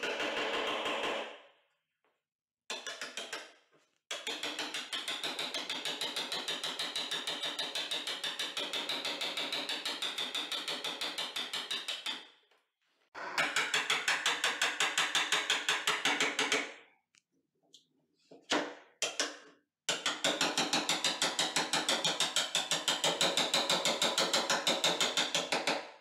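Claw hammer tapping a bevel-edged chisel in quick, even strokes, chopping out a hinge mortise in the edge of a beech door. The tapping comes in long runs broken by short pauses.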